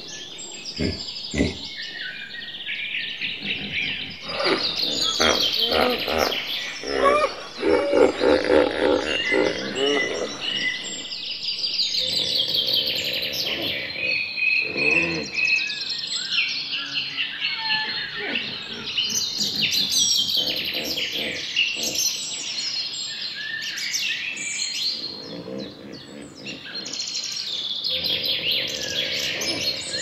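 Several birds singing and calling over one another, with many high chirps and trills and, now and then, lower pulsing calls.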